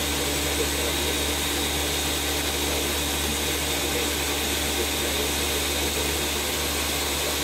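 Countertop blender running steadily, blending homemade walnut and hemp milk.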